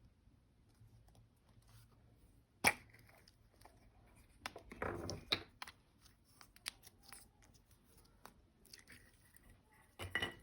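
Slime and makeup being handled by hand: one sharp click, then crackly, squelchy handling noise with scattered small clicks and taps.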